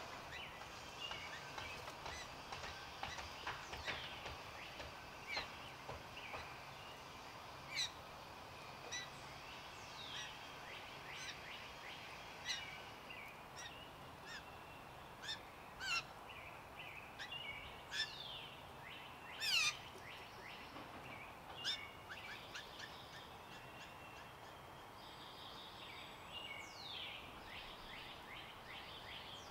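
Songbirds chirping and calling, many short quick falling chirps scattered throughout, with a few louder ones in the middle, over a steady outdoor background hiss.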